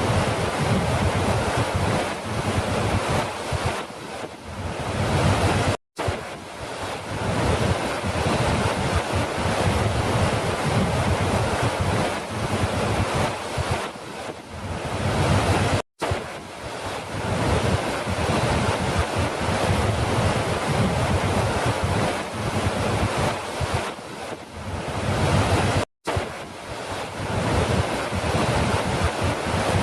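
Steady rush of falling water, a dense hiss and roar with no distinct splashes. It is a short recording looped about every ten seconds, cutting out to silence for an instant three times.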